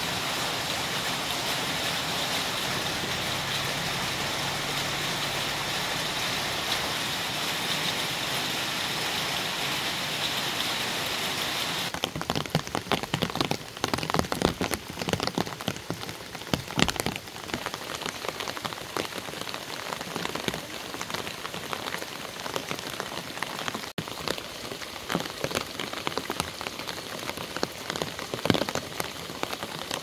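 Rain falling: an even, steady hiss for about the first twelve seconds, then, after a cut, a closer and more uneven patter of individual drops.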